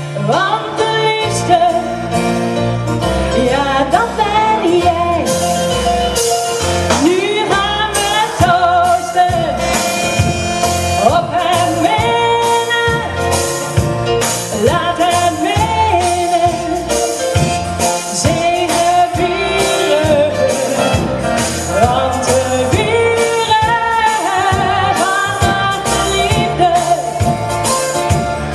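Pop song with a sung vocal line over sustained chords, a steady beat coming in about five seconds in.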